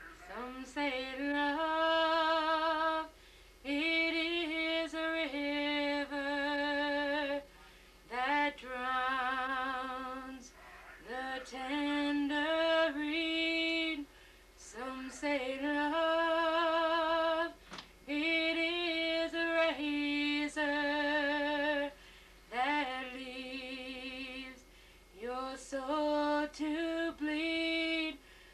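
A woman singing solo and unaccompanied, holding long notes with vibrato in phrases of a few seconds, with short breaths between them.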